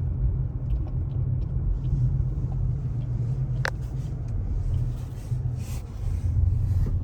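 Steady low rumble of a car driving, heard from inside the cabin, with a few light clicks and one sharper click midway.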